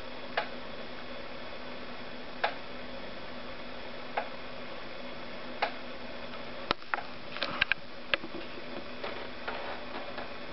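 Steady hiss with a low hum, broken by sharp clicks. Single clicks come roughly every two seconds at first, then a quick cluster of them a little past the middle, then a few fainter ones near the end.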